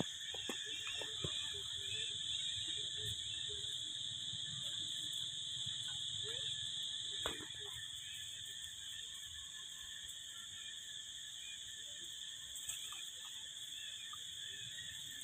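Steady high-pitched insect chorus, with faint short chirps through the first half and one sharp click about seven seconds in.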